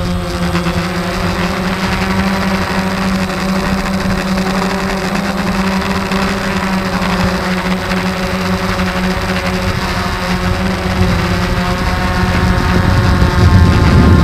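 DJI Phantom quadcopter's electric motors and propellers humming steadily in flight, heard close up from a camera mounted on the drone. It grows louder toward the end as the drone speeds up.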